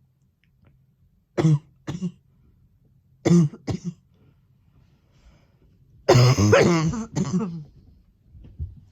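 A woman's barking cough: two pairs of short coughs, one about a second and a half in and another a little past three seconds, then a longer, louder coughing fit with voice in it at about six seconds, closing with one more cough.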